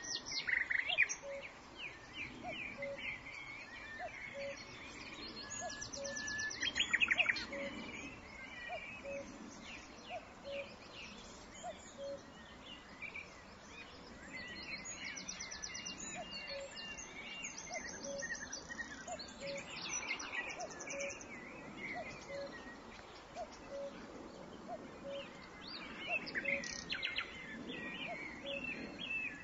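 Birds chirping and trilling in the background, in many short, quick calls. Under them runs a faint, regular tick about every three quarters of a second.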